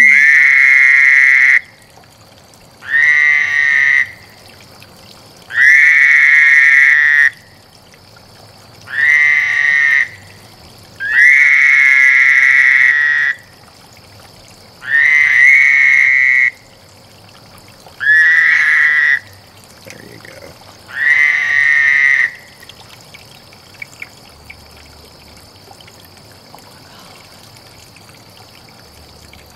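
Male toad's breeding call: eight high trills, each one to two seconds long and about three seconds apart, stopping about three-quarters of the way through.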